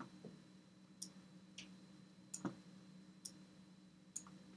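Faint computer mouse clicks, a handful spread over a few seconds, the loudest about halfway, over a low steady hum of room tone.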